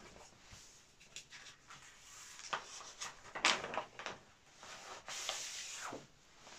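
Clear plastic sheet protectors and paper prints rustling and flapping as the pages of a large portfolio binder are turned and handled, with a few sharp clacks, the loudest about three and a half seconds in.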